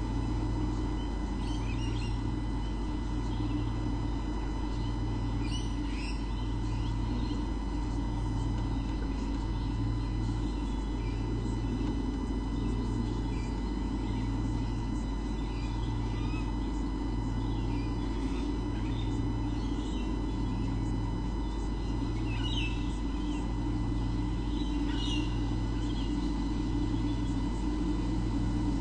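Steady electrical hum with a low throb that pulses about once a second, and a few faint, short bird chirps scattered through it.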